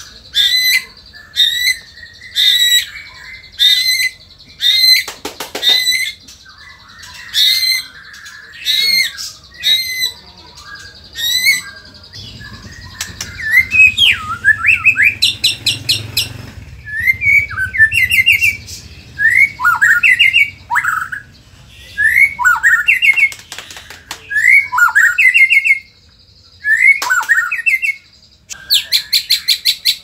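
White-rumped shama in loud, agitated song: short rising whistled notes about once a second, then from about halfway quick runs of sharp sweeping notes, and near the end a fast, even rattle of repeated notes.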